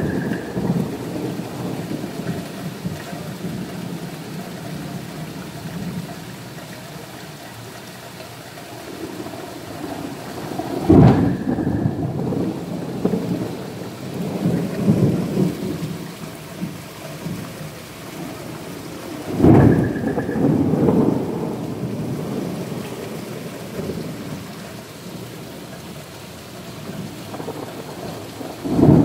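Heavy rain pouring steadily onto pavement, with thunder: sudden loud cracks about eleven and nineteen seconds in, each followed by rolling rumbles, and further claps at the very start and at the end.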